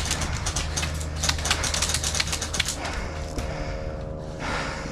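Airsoft rifle fire: a rapid, irregular clatter of sharp clicks in quick bursts that dies away about three seconds in.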